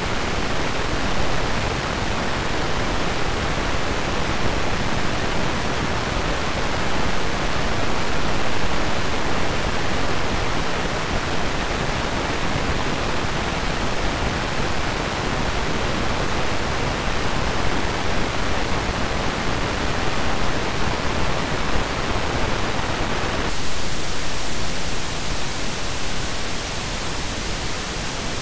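Amplified electrical noise of an old East German silicon 'Miniplast' transistor biased at a tiny base current: a steady rushing hiss with irregular popcorn (random telegraph) noise, its level jumping at random between states. About 23 seconds in, the hiss changes to a thinner, brighter sound as the next transistor takes over.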